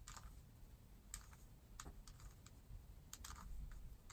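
Faint plastic clicks of a 3x3 Rubik's cube's layers being turned by hand, a quick series of single clicks, one for each turn, as the cube is run through an eight-move second-layer algorithm.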